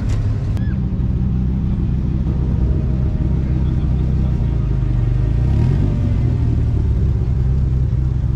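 Big-engined cars rolling slowly past one after another, a deep steady exhaust rumble throughout. A lime-green Dodge Viper roadster's V10 passes and revs up briefly about halfway through.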